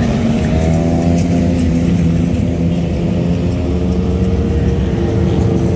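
Street traffic with motorcycles and cars passing, their engines running at low speed in a steady mix of engine tones.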